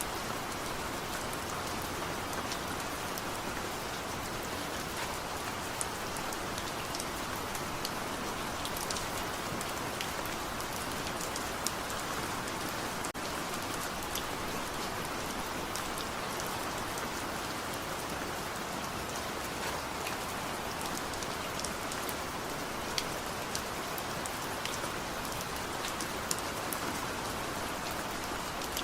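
Steady light rain falling, an even hiss with scattered sharper drip ticks from drops striking a surface.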